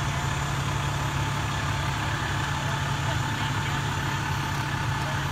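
Fire engine's diesel engine running at a steady low idle while the truck rolls slowly forward, a constant low hum.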